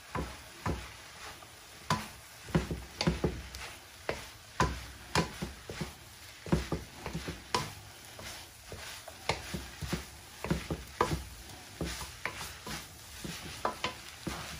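Wooden spatula scraping and knocking against a nonstick skillet while stirring chopped turkey sisig, in irregular strokes about one to two a second, over a faint sizzle from the hot pan.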